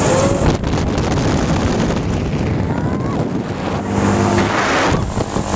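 Wind rushing over the microphone with the rumble of a Mondial Turbine thrill ride in motion: a steady, loud roar.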